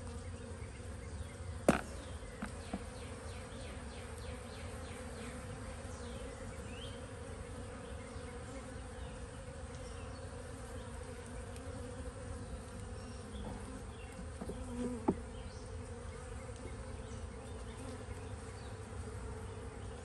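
Honeybees humming steadily around an opened hive, the colony stirred up by the inspection. Two sharp knocks, about two seconds in and again near fifteen seconds, as the wooden frames are handled.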